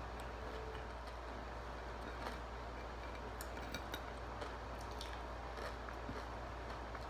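Fingers picking at crispy fried chicken strips on a plate, with scattered small clicks and crackles, over a steady low hum.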